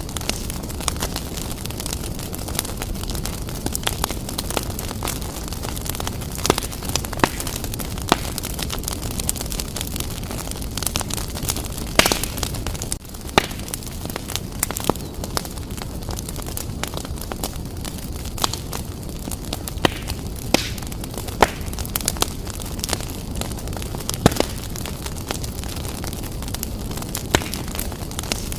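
Wood fire burning briskly in a fireplace: a steady low rumble of flames with frequent sharp crackles and pops. The loudest pop comes about twelve seconds in.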